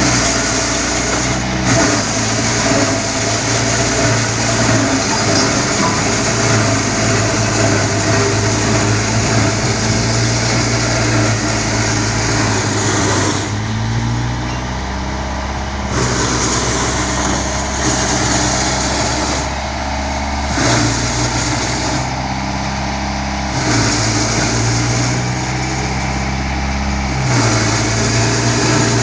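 Road roller's diesel engine running steadily, its low hum shifting in pitch every few seconds as the machine works.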